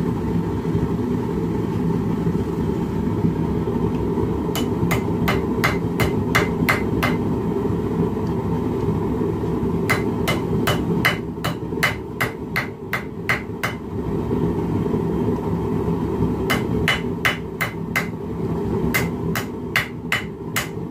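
Hand hammer striking hot metal held in tongs on an anvil, in three runs of quick sharp blows, about three a second, with pauses between the runs. A steady low rushing noise runs underneath the whole time.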